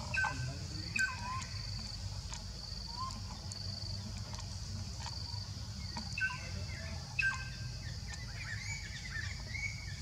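Short, high animal calls, in two quick pairs about a second apart and a wavering call near the end, over a high, evenly pulsing chirp and a low rumble.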